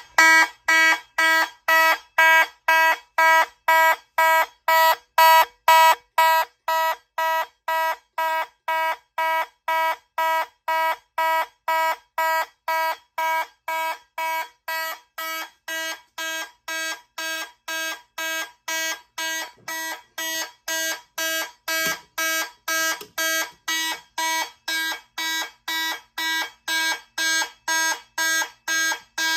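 Fire alarm horns sounding in alarm during a system test, with a steady pitched blast pulsing on and off at about two beats a second.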